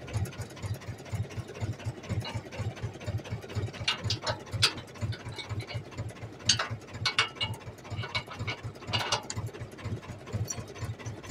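A tractor's diesel engine idling with a slow, even thump, while the top link of the three-point hitch is screwed in. The hitch gives sharp metallic clicks and clinks several times, the loudest about four, six and a half and nine seconds in.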